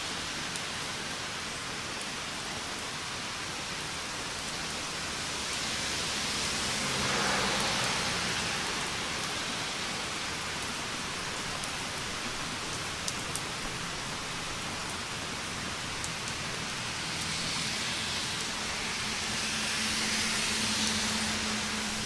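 Steady rain falling: a continuous hiss with a few sharp drop ticks. It swells louder twice, about a third of the way in and near the end, each time with a faint low hum underneath.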